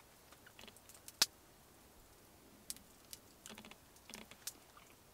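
Spruce-wood fire crackling with scattered sharp pops, one much louder snap about a second in and small clusters of crackles later on.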